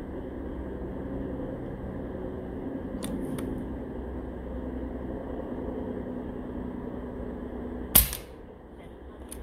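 Regulated AirForce Talon SS PCP air rifle firing one shot, a sharp crack about eight seconds in. Two light clicks come about three seconds in, over a steady low hum in the background.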